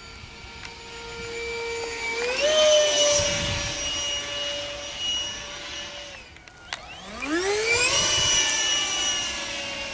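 Electric ducted fans of a Dynam Meteor RC jet whining. The pitch rises sharply about two seconds in and holds, falls away around six seconds, then climbs steeply again a second later and holds, slowly easing.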